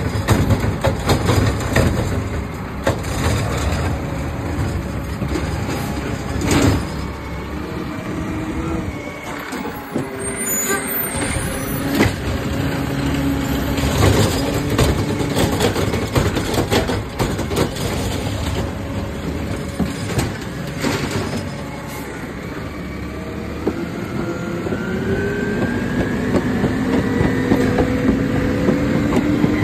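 Automated side-loader garbage truck at work: the diesel engine runs steadily under the hydraulic arm as it lifts and empties a trash cart, with several sharp knocks from the cart and arm. Near the end the engine note rises steadily as the truck pulls forward.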